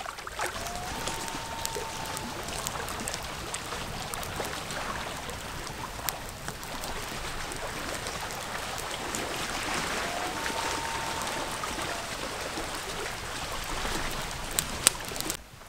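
Two faint, distant coyote howls, each rising and then holding, about a second in and again about ten seconds in. Behind them is a steady outdoor hiss with scattered crackles.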